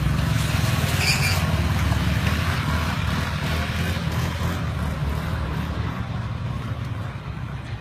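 Small motorbike engines running with a steady low rumble.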